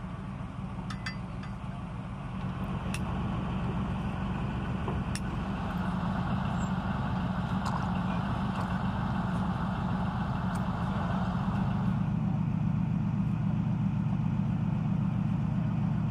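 Heavy armoured vehicle's engine idling with a steady low rumble that grows slightly louder over the first few seconds, with a few light clicks on top.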